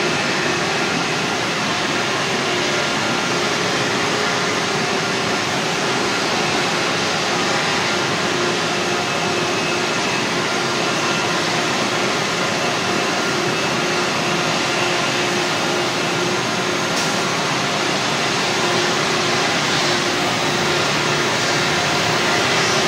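Loud, steady machinery noise inside an industrial plant: an even rushing sound with a few faint, steady hums mixed in, unchanging throughout.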